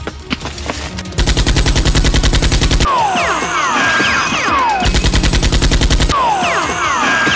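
Two bursts of rapid automatic gunfire, a machine-gun sound effect, each followed by falling, ringing tones, with music under it.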